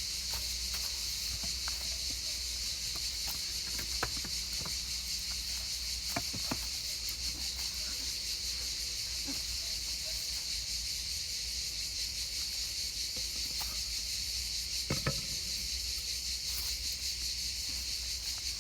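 Steady high-pitched hiss, with a few faint, short clicks and knocks scattered through it, the clearest about fifteen seconds in.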